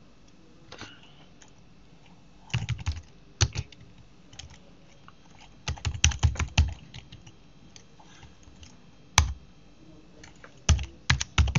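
Typing on a computer keyboard in short irregular bursts of keystrokes with pauses between them, and one single sharp key press about nine seconds in.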